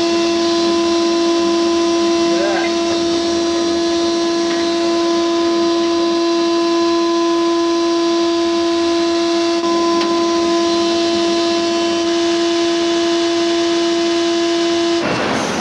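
Sandblast cabinet running as exhaust header pipes are blasted: a loud, steady droning tone over a dense hiss of blasting air and grit, cutting off suddenly near the end.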